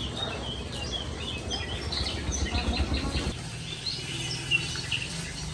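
Birds chirping and tweeting over the low, rhythmic rub of a stone roller grinding spice paste on a flat grinding stone (sil-nora).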